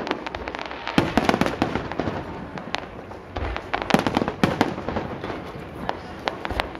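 Fireworks display: a rapid string of aerial shell bangs and crackling. The bangs come thickest about a second in and again around four seconds.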